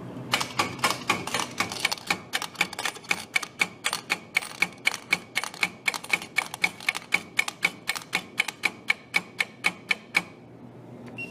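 Vending machine's coin changer paying out quarters one after another into the metal coin-return cup: about four clinking drops a second for some ten seconds. The payout stops abruptly when the changer runs out of quarters.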